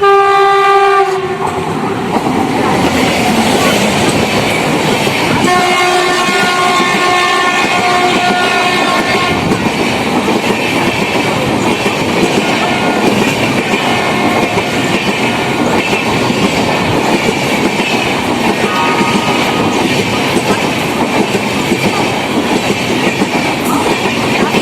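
An Indian Railways WAP-7 electric locomotive's air horn blowing as an express train passes at speed, with the steady roar and clatter of the coaches' wheels over the rail joints throughout. One horn blast ends about a second in, a long blast of about four seconds follows a few seconds later, and two short toots come after.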